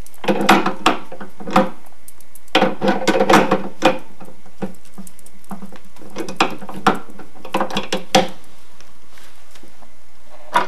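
Metal clicks and clatter as a hydraulic splicing-press head is fitted over two stacked telephone-cable splicing modules. The clicks come in a few short flurries with pauses between.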